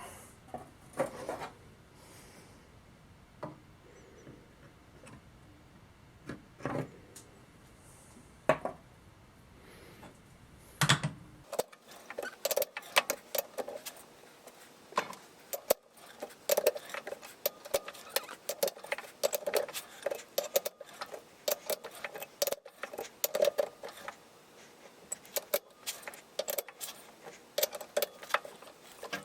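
Irregular metallic clicks and clinks of small metal parts and hand tools being handled. The clinks come a few seconds apart at first, then about a third of the way in they turn into a quick, busy run.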